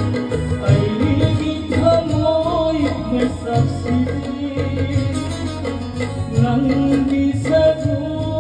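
Music: a song with a singing voice over a steady low beat.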